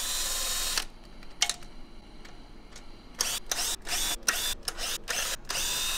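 Cordless drill fitted with a socket spinning nuts off the gearbox cover of a GTD-350 helicopter turboshaft engine. The motor whines in short runs: one at the start, a single click about a second and a half in, then a quick string of stop-start bursts and a longer run near the end.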